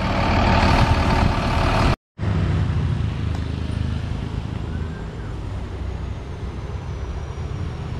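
Mercedes-Benz bus's rear diesel engine running, first idling with the engine hatch open, an engine the owner says still lacks power on climbs. About two seconds in it cuts off abruptly, and a bus engine pulling up the hill road takes over as a steady low rumble.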